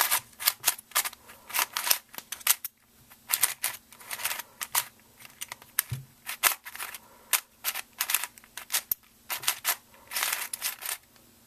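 Plastic clicking and clacking of a Meffert's Venus cube, a 3x3 twisty puzzle, being turned quickly by hand. The layers snap round in irregular runs of sharp clicks.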